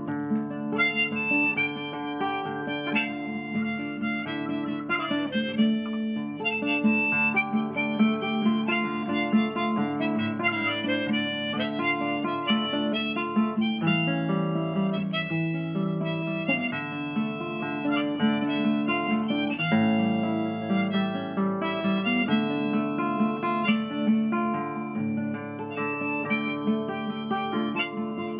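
Background music: a harmonica melody over acoustic guitar, the harmonica coming in about a second in.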